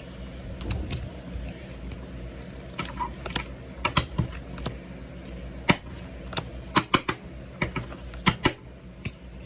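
Pokémon trading cards handled and flipped through by hand, giving a string of irregular sharp clicks and snaps, more frequent in the second half.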